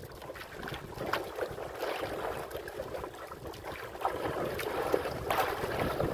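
Choppy sea water lapping and splashing against the hull of a small wooden outrigger boat, with wind on the microphone; short splashes stand out now and then.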